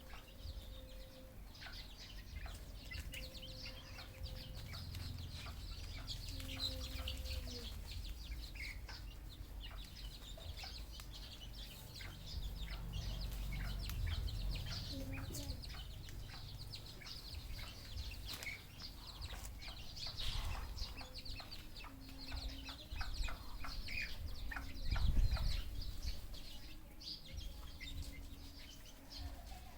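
Red junglefowl (wild chickens) clucking in short, low held notes, with many small sharp ticks and a low rumble underneath.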